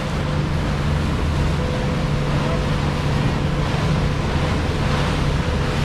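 Deck boat's outboard motor running steadily under way through large waves, with water rushing past the hull and wind on the microphone in a steady even roar.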